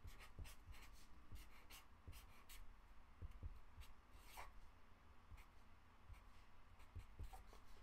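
Felt-tip marker drawing on paper: faint, short scratchy strokes in a quick irregular series, with a few soft low knocks.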